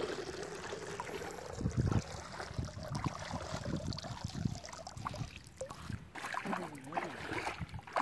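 Shallow river water sloshing and splashing around the legs of someone wading, over an uneven low rumble that rises and falls.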